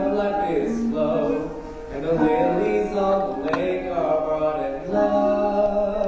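Musical-theatre music with singing: held notes and melody over accompaniment.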